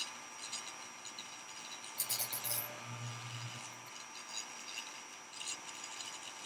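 Handheld mini electric drill with a 0.3 mm bit boring tiny rigging holes in a plastic model hull: the small motor hums for about a second and a half starting two seconds in, with scratchy rasping of the bit against the plastic, once more near the end.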